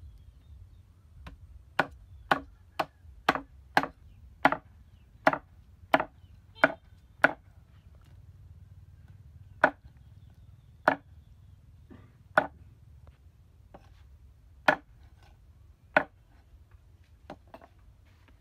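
Meat cleaver chopping raw chicken into pieces on a thick wooden chopping block: a quick run of about ten sharp chops, roughly two a second, then single chops a second or two apart.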